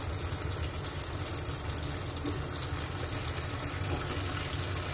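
Unniyappam deep-frying in hot oil in a pan: a steady sizzle with fine, rapid crackling.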